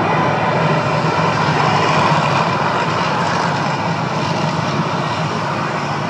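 The Mirage volcano attraction's show sound: a loud, steady rushing noise with a low hum underneath, slowly fading.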